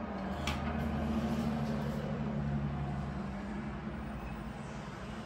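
A low, steady hum like a motor vehicle running, swelling about half a second in and easing off again, with one light click near the start.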